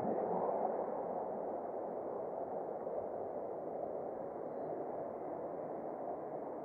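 Steady street traffic noise from cars on the road alongside, a continuous muffled rush that eases off slightly over the seconds.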